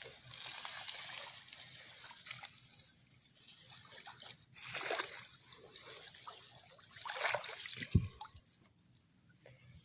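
Shallow paddy water splashing and trickling in a few separate swells, with a short dull thump near the end.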